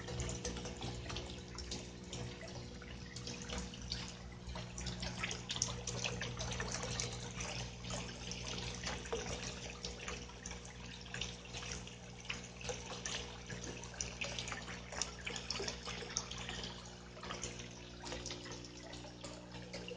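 Floating solar water fountain running in a fish tank: water spraying up and falling back onto the surface in a continuous trickling, dripping patter, over a steady low hum.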